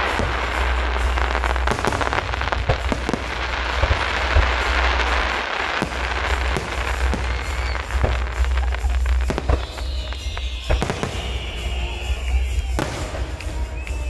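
Aerial fireworks shells bursting overhead in a steady barrage of sharp bangs, with dense crackling in the first half that thins out after about six seconds.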